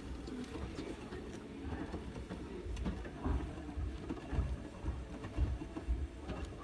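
Hotpoint WT761 Ultima washing machine running, its drum turning with low, irregular thuds that come more often from about halfway through.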